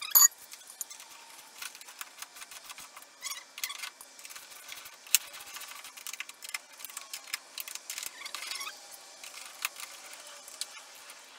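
Small metal hardware clinking and clicking as bolts, washers and spacers are fitted to a manual boat jack plate by hand and with a hand tool: irregular taps and rattles, with one sharp click at the very start the loudest.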